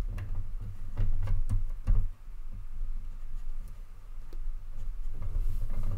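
LEGO plastic parts clicking and clacking as the pieces of a brick-built robot figure are turned and repositioned by hand, with several sharp clicks in the first two seconds and fewer after. Low thumps of fingers handling the model run underneath.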